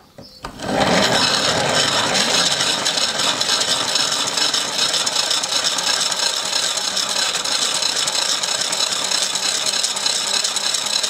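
3D-printed plastic gear train with a 9-to-1 step-up, driven by hand levers, spinning the generator at high speed with a steady whirring clatter of plastic teeth. It starts less than a second in and keeps on evenly.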